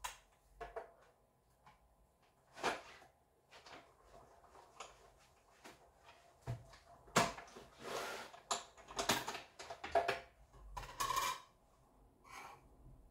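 Paper crafting materials being handled on a work table: a run of light knocks, clicks and paper rustles, with longer stretches of rustling about seven and ten seconds in.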